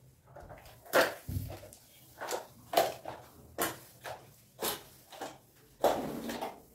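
A series of light knocks and clatters, about eight of them at irregular intervals, from things being handled and set down in a kitchen.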